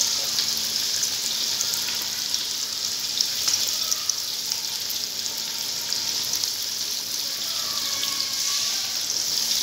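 Egg- and vermicelli-coated potato kababs deep-frying in hot oil in an aluminium karahi: a steady sizzle with small crackles.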